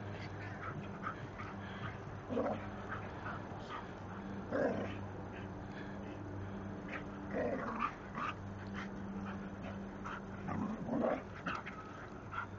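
Two dogs, a soft-coated wheaten terrier and a small white dog, playing rough, with about half a dozen short play vocalisations spread a second or two apart.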